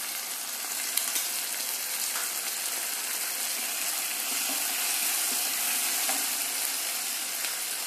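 Onions and green capsicum sizzling in a nonstick frying pan over a high flame, as soy sauce is spooned in and stirred through with a spatula. There is a steady hiss, with a few light clicks of utensils on the pan.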